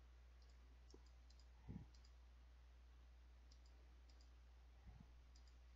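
Near silence over a low steady hum, with faint computer mouse clicks scattered through and two soft low thumps, one about two seconds in and one near the end.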